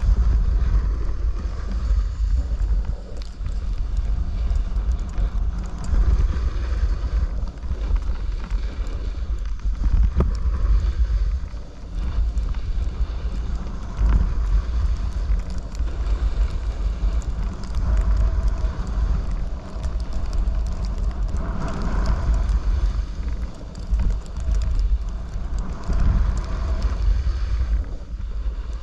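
Wind buffeting the camera microphone as a snowboard runs down a packed-snow piste, with the board's edges scraping and hissing over the snow. The rush swells and dips every second or two with the turns.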